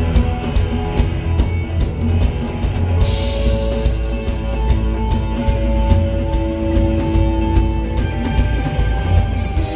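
Live rock band playing an instrumental passage on drum kit, bass guitar and electric guitar, with a steady drum beat. Cymbals crash about three seconds in and again near the end.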